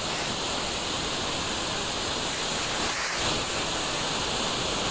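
Steady hiss of a small hydrogen torch flame burning at a basketball-needle tip fed from a balloon.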